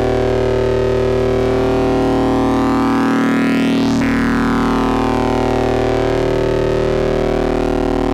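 Eurorack modular synthesizer drone from Rossum Trident oscillators, wave-spliced and wave-folded, holding a steady pitch while its timbre sweeps slowly, with a sharp bright turn about halfway through.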